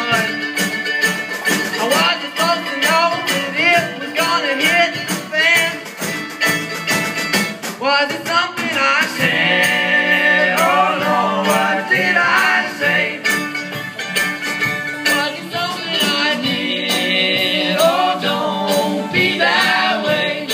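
Live string band playing a folk tune on banjo, acoustic guitar and mandolin with a drum kit, several voices singing together into the microphones. From about nine seconds in the voices hold long notes over the picking.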